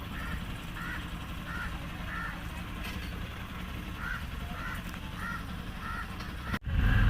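A bird calling over and over, a short caw-like call about every half second, over the steady low rumble of the boat's motor. Near the end the sound cuts off abruptly and a louder engine rumble follows.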